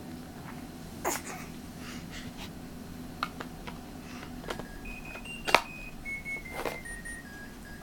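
A few sharp clicks, then from about halfway in a slow run of thin electronic beep tones stepping up and then mostly down in pitch, like a simple tune.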